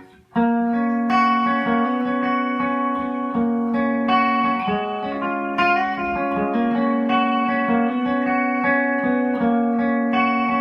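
Guitar playing a short ringing passage of G major triad inversions on the middle strings, the chords sustaining and changing about every second.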